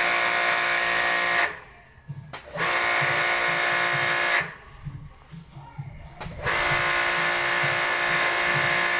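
A small electric motor whining steadily at one pitch, switched on and off in runs of a few seconds. It stops about one and a half seconds in and again near the middle, starting up again each time.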